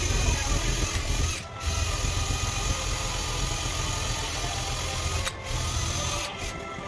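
Cordless drill spinning a rubber eraser wheel against a car's painted lower door panel, rubbing off double-sided adhesive tape residue: a steady mechanical whirring that dips briefly about one and a half seconds in and again a little after five seconds, and eases near the end.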